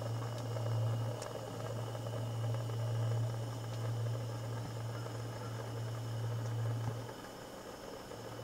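Portable canister gas heater burning, a steady low hum with a soft hiss over it; it drops in level near the end.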